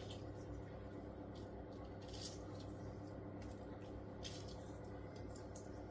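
Faint squishing and dripping as liquid is squeezed and drizzled over raw chicken pieces and potatoes in a roasting tray, with a few light clicks, over a steady low hum.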